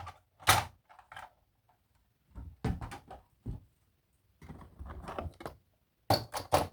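Handling noises from toys and their packaging: a string of irregular short knocks and clicks with silent gaps between, loudest about half a second in and in a quick cluster near the end.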